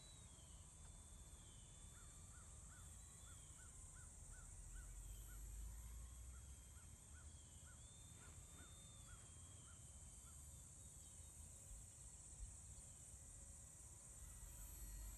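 Near silence: the distant, faint whine of a foam-board RC plane's electric motor, its pitch stepping up and down with the throttle, over a low wind rumble on the microphone. A faint run of short chirps, two to three a second, comes and goes in the first half.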